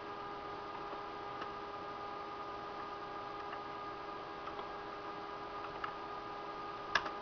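Steady electrical hum with several high whining tones from the running retro Pentium PC, with a few faint clicks scattered through and a sharper double click near the end.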